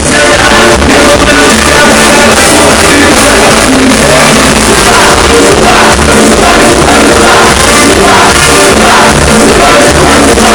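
Live band playing with a male singer on a microphone, very loud and close to the stage, with a drum kit keeping a steady beat.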